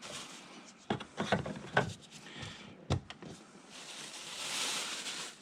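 Several light clicks and knocks of things being handled, then a soft hiss about four seconds in that swells and fades.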